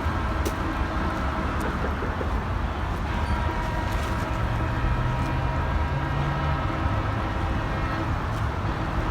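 Steady rumble of road traffic, with a vehicle's low engine hum stepping up in pitch a few seconds in.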